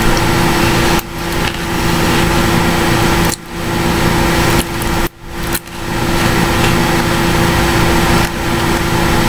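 Loud steady hiss and hum from the recording computer's microphone, the heavy background noise that the uploader calls feedback, dipping briefly about four times.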